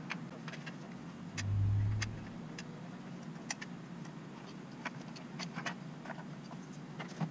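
Scattered light clicks and taps of aluminum angle stock being handled and shifted in a small bench vise, over a steady low hum of background traffic, with a brief low rumble about a second and a half in that is the loudest thing heard.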